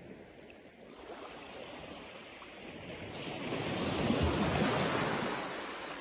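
Small sea wave breaking and washing up over wet sand at the water's edge. It swells to its loudest about four seconds in, then fades.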